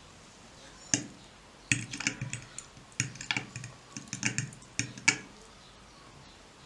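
Typing on a computer keyboard in irregular bursts of key clicks, stopping after about five seconds.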